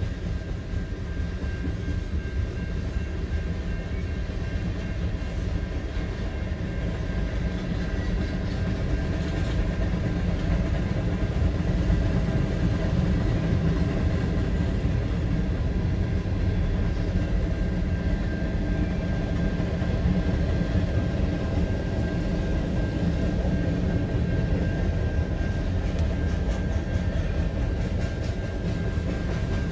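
Freight cars of a Canadian National mixed train rolling steadily through a road grade crossing: a continuous deep rumble of wheels on rail, growing a little louder about halfway through, heard from inside a car stopped at the crossing.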